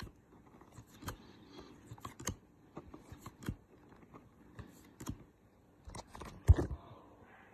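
Bowman Chrome baseball cards being slid one by one off the front of a stack and tucked behind: irregular light clicks and scrapes of card on card, with one louder knock about six and a half seconds in.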